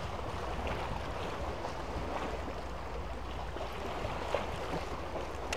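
Small sea waves washing and lapping against concrete tetrapods and rocks, with wind rumbling on the microphone; one brief click a little past four seconds in.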